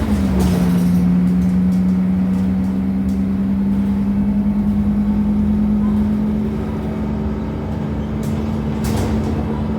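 Temsa Avenue LF bus's DAF Euro 5 driveline running, with a strong humming tone that drops slightly just at the start and then slowly climbs in pitch. This tone is the strange sound the bus is known for. A few short rattles come near the start and toward the end.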